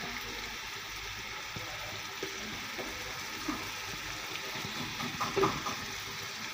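Tomato-onion masala with raw potato wedges frying in oil in a steel pot: a steady sizzling hiss. A few light clicks and knocks come through, loudest about five seconds in.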